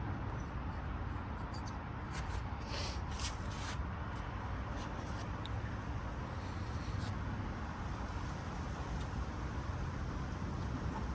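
Steel pick scraping around a cylinder-head port edge through the gasket, scribing a line in dried blue layout dye, with faint scratches and light clicks. A steady low rumble of background noise runs underneath.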